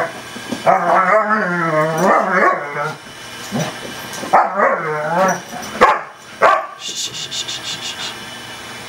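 A German Shepherd and a golden retriever puppy growling in rough play: long wavering growl-grumbles in three stretches, then two short sharp sounds a little over half a second apart.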